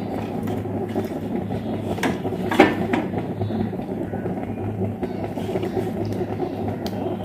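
A steady low mechanical hum runs throughout, with a few short taps and knocks, the loudest about two and a half seconds in, as wet ground rice-and-almond paste is pressed off the fingers into a pan of ghee.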